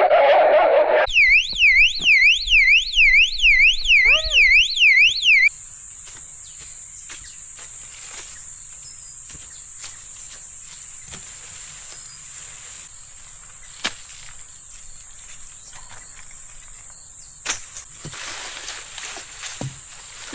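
Electronic warbling alarm tone, sweeping up and down about two to three times a second for roughly four seconds, then cutting off abruptly. After it comes a steady high insect trill with a few small clicks and rustles.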